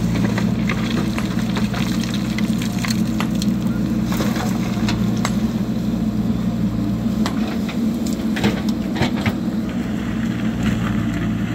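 A JCB backhoe loader's diesel engine runs steadily close by. Over it come many short, sharp knocks and cracks of rock and stones striking and clattering.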